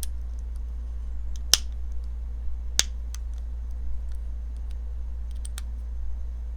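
A few sharp, light clicks and ticks of a small knife and driver being handled during disassembly, two of them louder, over a steady low hum.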